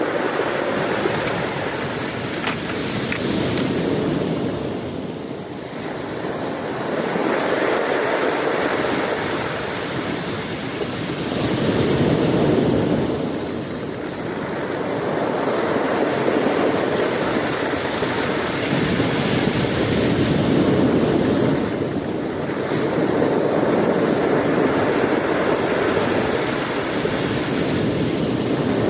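Sea waves breaking and washing on the shore, the surf swelling and ebbing every few seconds.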